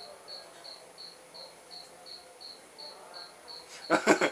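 Cricket chirping steadily: a short high chirp about three times a second. Near the end there is a brief burst of voice.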